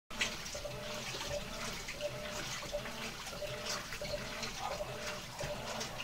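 Whirlpool top-load washing machine running with water: a steady watery rush with a faint regular pulse.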